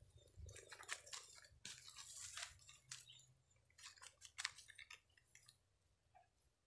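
Faint crackling and rustling of dry grass and small handling clicks: scattered crackles for the first few seconds, fading to near silence near the end.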